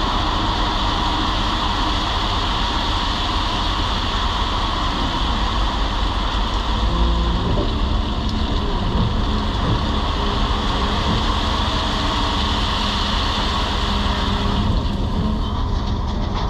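Tracked excavator's diesel engine and hydraulics running steadily under work, with a hiss over a low rumble. The lower tones shift in pitch around the middle as the load changes, and the higher hiss falls away near the end.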